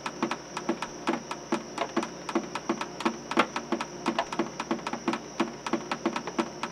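Percussive backing track: a steady rhythm of low knocks about three a second under quicker clicks, with a thin high tone held throughout.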